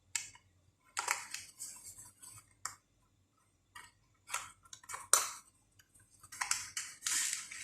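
Scattered light clicks, taps and short rustles of small computer parts and packaging being handled on a work surface, as a replacement SSD is got out for fitting.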